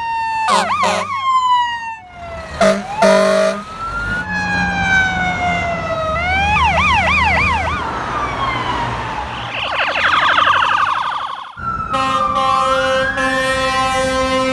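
Fire apparatus siren on an emergency response: long falling wails alternating with a rapid yelp, broken by blasts of the air horn, with a siren rising in pitch over a held horn blast near the end. The sound breaks off abruptly a few times where the footage is cut.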